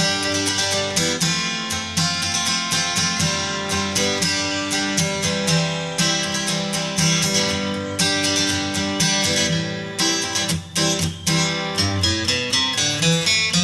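Instrumental background music led by a quickly plucked and strummed acoustic guitar.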